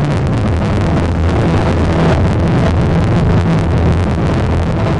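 Loud, bass-heavy music played over loudspeakers, with a dense stream of percussive hits.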